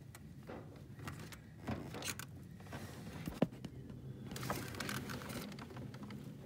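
Small metal clicks and clinks of a 12 mm wrench being fitted onto a T60 Torx socket on the oil filter adapter bolt, with one sharp click about three and a half seconds in and a stretch of scraping after about four seconds.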